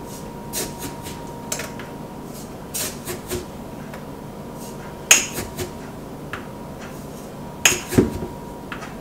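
A plastic measuring cup and sugar canister being handled while sugar is measured out: scattered clinks and knocks, the loudest about five seconds in and again near the end, over a faint steady high tone.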